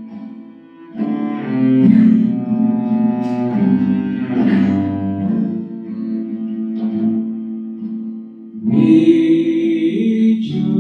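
Instrumental passage of a slow devotional song: sustained chords, freshly struck a few times in the first half. Near the end, singing of the next verse begins.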